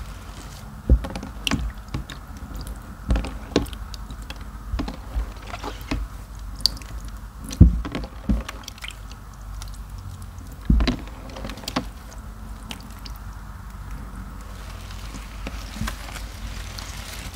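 Two wet mesh bath loofahs squeezed and kneaded by hand in soapy water: irregular wet squelches and splashes, about one or two a second, with sloshing water between.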